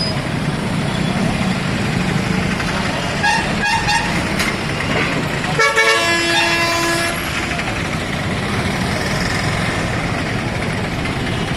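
Road traffic noise with vehicle horns: short toots about three and a half seconds in, then a longer horn blast around six seconds in.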